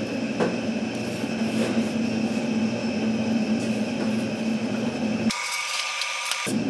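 Steady mechanical hum of restaurant kitchen equipment, with faint strokes of a long knife slicing through smoked brisket on a plastic cutting board. About five seconds in, the hum drops out for about a second and a brighter hiss with a high whine takes its place.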